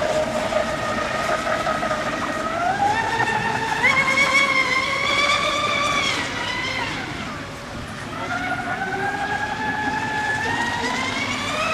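Radio-controlled speedboat's motor whining at speed, its pitch climbing as the throttle opens, dropping back about halfway through, then climbing again toward the end. The pond is too short for the boat to be run at full throttle.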